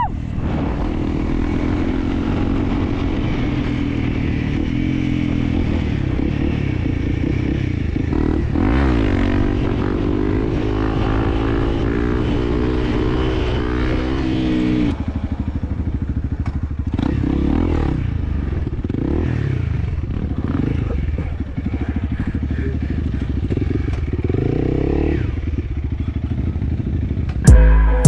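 Motorcycle engine running under way, its pitch rising and falling with the throttle; the rev changes come more often in the second half.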